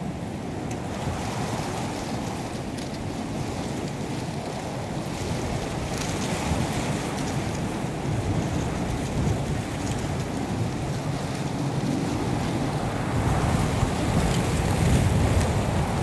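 Wind blowing across the microphone outdoors: a steady low rushing that grows somewhat louder near the end.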